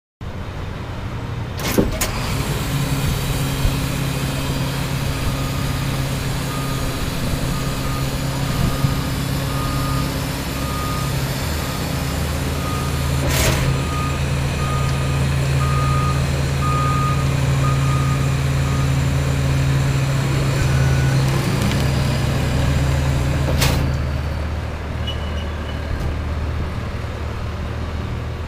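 Heavy vehicle engine running steadily, with a reversing alarm beeping about once a second for a stretch in the middle. A few sharp clicks, and the engine drone drops away suddenly near the end.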